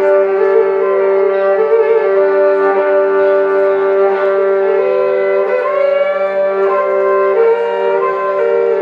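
Live instrumental music: a steady, reedy drone held on one low note, with a wavering melody of shifting and sliding notes played above it.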